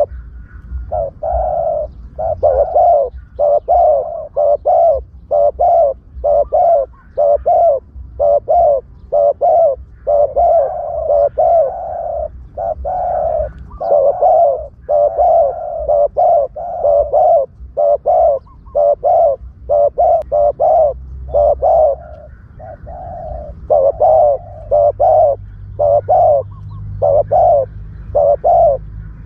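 Spotted dove cooing over and over, a fast unbroken run of short, loud coos with brief gaps, used as a decoy call to draw wild doves. A low rumble sits underneath, stronger near the end.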